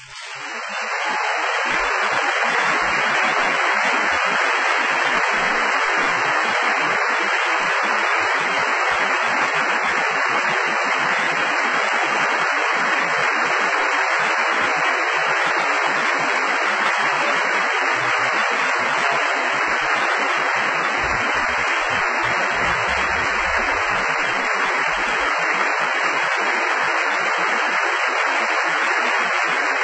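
Concert hall audience applauding steadily after an orchestral song ends, a dense, even clapping that starts about a second in.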